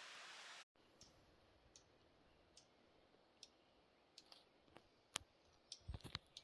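Near silence with a faint hiss that cuts off abruptly just under a second in, followed by faint, scattered sharp clicks that come closer together near the end.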